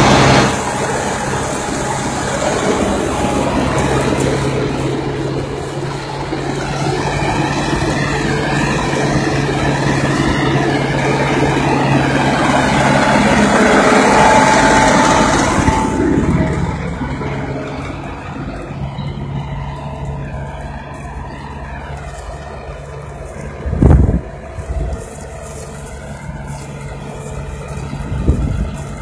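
Erkunt Servet 80.4 tractor's diesel engine running steadily under load while pulling a four-bottom mounted plough through the soil. It is loud and close at first and becomes quieter and duller a little past halfway. A single sharp thump comes about three-quarters of the way in.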